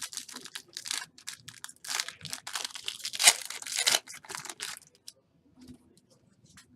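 Foil wrapper of a pack of football trading cards being torn open and crinkled: a run of crackling rustles that stops about five seconds in.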